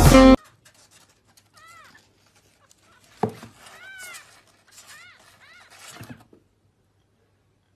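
Guitar music cuts off just after the start. Then a kitten mews about five times, short thin calls that rise and fall in pitch, with a single thump about three seconds in.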